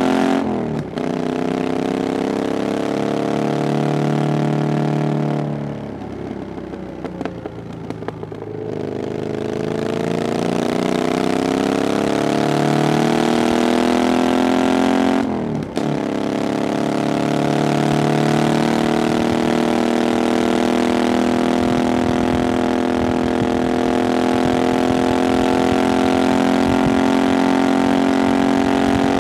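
Triumph Bonneville Scrambler 900's 900cc parallel-twin running through a "VW pipes" aftermarket exhaust, pulling hard with revs climbing. It shifts up about half a second in and again about halfway, the pitch dropping after each short break, and a fifth of the way in it goes quieter with falling revs off the throttle before pulling again.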